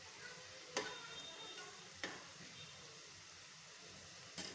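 Food sizzling as it fries in hot oil, a steady hiss, with three sharp clicks of a utensil against the pan: about a second in, two seconds in and near the end.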